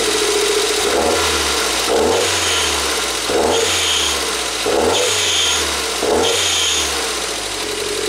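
A 1992 Toyota MR2's 2.0-litre turbo four-cylinder engine is revved in about five quick throttle blips, each rising and falling back toward idle. At idle the engine is misfiring and running lean.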